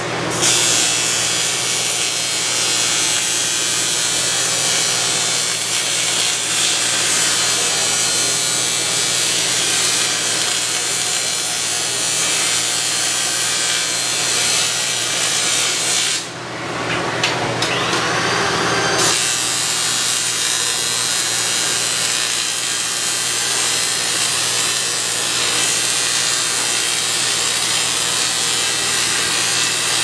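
TIG welding arc on an aluminum frame: a steady hiss with a low buzz under it, dropping out briefly about halfway through before the arc picks up again.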